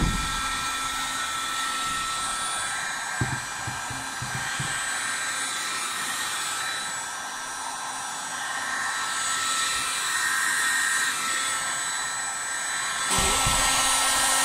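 Handheld electric heat gun blowing steadily: a fan hiss with a faint thin whine, growing louder near the end. A few brief low thumps near the start and about three seconds in.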